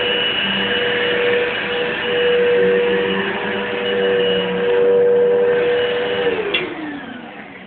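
Household vacuum cleaner motor running with a steady whine, then about six seconds in it winds down, its pitch falling as it loses power. The cause is the plug being pulled from the wall when the cord is tugged.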